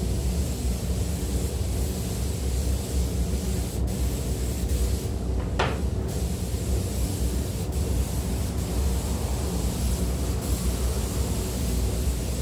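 Compressed-air spray gun hissing steadily as coating is sprayed onto the car body, over a steady low rumble, with a sharp click a little past halfway.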